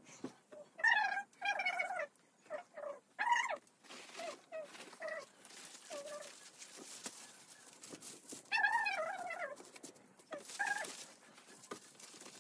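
Short whining cries that fall in pitch, coming in a few groups with pauses between, over the rustle of crepe paper being unfolded and handled.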